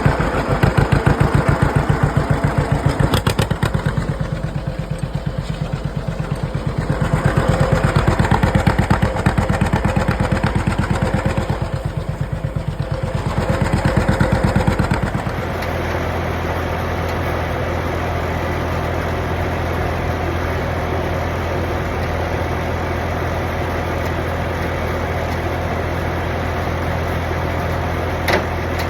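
An engine running with a fast throbbing pulse that swells and fades in loudness, then about halfway through it changes abruptly to a steady, even hum. A short click near the end.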